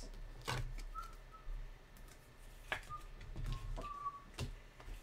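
Soft whistling: a few short, faint notes in a row, some held a little longer near the end. Three light clicks and taps come from cards and packs being handled.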